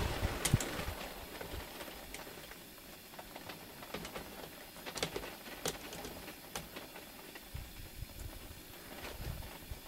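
The echo of a muzzleloader shot dying away over about the first second, then quiet with a few scattered faint clicks and soft thumps.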